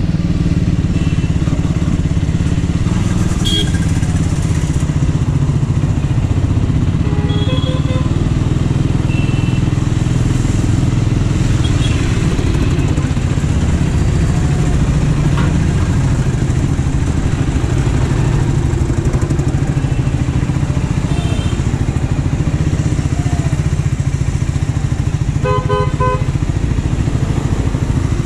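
Triumph Scrambler 400's single-cylinder engine running steadily while ridden in slow city traffic. Vehicle horns honk a few times, with a quick string of beeps near the end.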